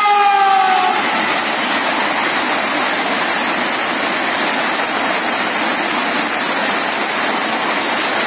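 Train 18 electric multiple unit trainset running past: its horn ends with a slight drop in pitch about a second in. After that comes a loud, steady rushing noise of the train passing.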